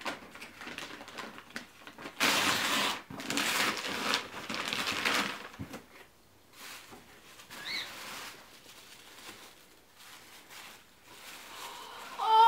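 Gift wrapping paper being torn and rustled off a present in three loud bursts, then quieter rustling of paper and a cardboard box, with a short faint chirp about two-thirds of the way in.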